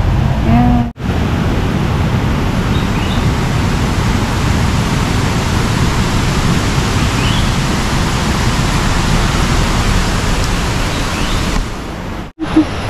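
Loud, steady rushing noise with a strong low rumble, cutting out briefly about a second in and again near the end.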